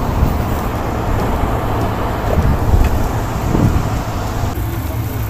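Air-conditioning condensing unit running: condenser fans giving a steady rushing drone over a low hum.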